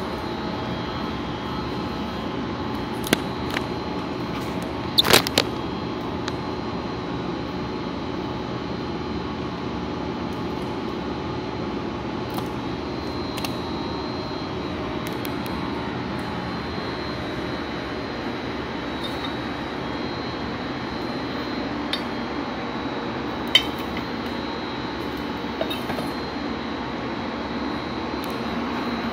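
A machine running with a steady hum and a thin, high, steady whine, broken by a few sharp clicks or knocks, a cluster of them about five seconds in.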